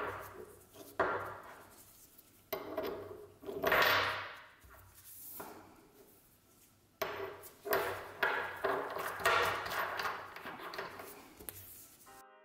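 Turned steel machinist's jack parts handled on a wooden workbench: a series of knocks of steel set down on wood and clinks of metal against metal, with scraping as the pieces are slid and fitted together, busiest in the second half.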